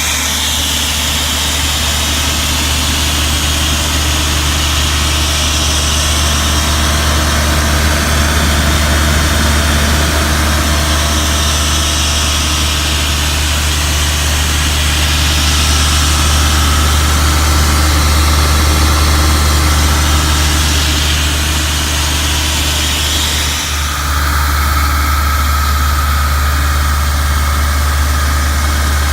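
John Deere 4045D four-cylinder diesel engine of an Ingersoll Rand P185 towable air compressor running steadily, with a brief dip in level about three-quarters of the way through.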